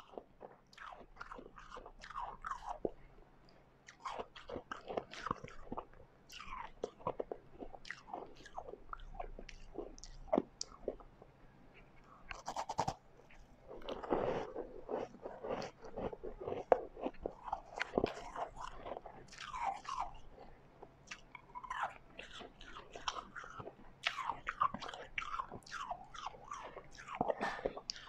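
A person biting and chewing white refrozen ice close to the microphone: a steady run of irregular crisp crunches, several a second.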